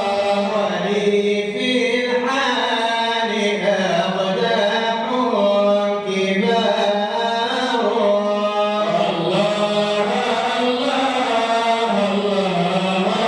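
Unaccompanied Arabic Sufi praise chant (madih) for the Prophet, sung by a male voice in long melodic lines that bend and are held without a break.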